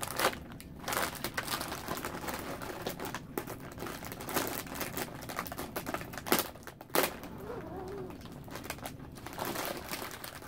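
Plastic Oreo cookie package being opened and handled: irregular crinkling and crackling of the wrapper, with a couple of louder, sharper crackles about six to seven seconds in.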